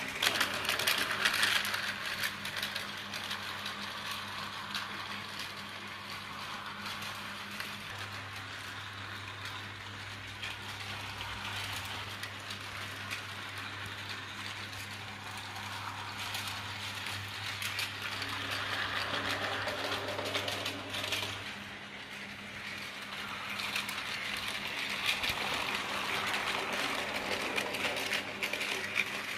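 Battery-powered Tomy Plarail toy train whirring and rattling along plastic track, its coaches clicking over the rail joints. It swells louder as it passes close about a second in, again around two-thirds of the way through, and near the end. A steady low hum underneath stops about two-thirds of the way through.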